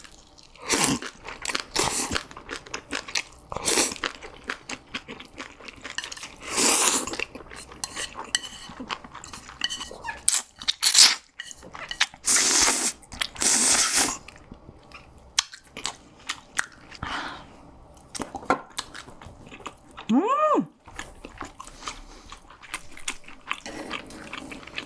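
Close-miked eating: chewing and crunching food in the mouth, with several longer noisy stretches of slurping. About 20 seconds in there is a brief rising-and-falling hummed "mm".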